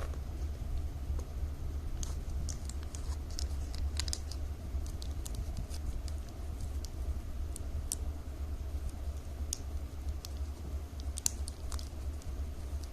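Scattered small clicks and crinkles of plastic strips cut from milk powder bags, handled and folded as they are woven, over a steady low hum.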